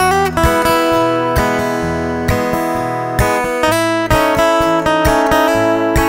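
Instrumental background music led by acoustic guitar, plucked notes and strummed chords.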